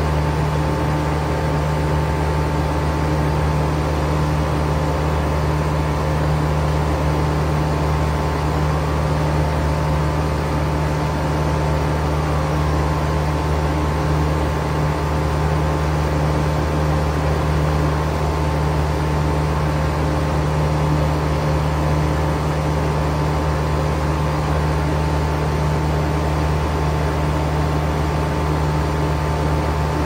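Outdoor unit of a 2019 American Standard Odyssey commercial heat pump running steadily in cooling mode, its compressor and condenser fans making a constant hum with a faint steady high tone over the rush of air.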